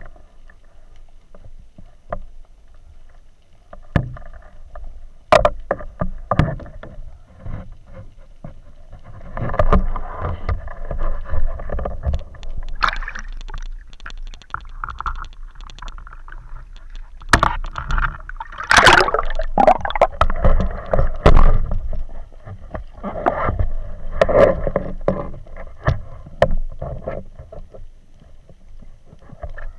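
Seawater sloshing and splashing around an action camera in a waterproof housing at the surface, with scattered knocks and clicks against the housing. The splashing is uneven and comes in surges, loudest about two-thirds of the way through.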